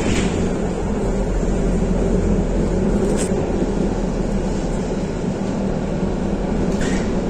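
Tram running along its track, heard from inside the car: a steady low rumble of wheels and running gear on the rails, with two brief sharp clicks, one about three seconds in and one near the end.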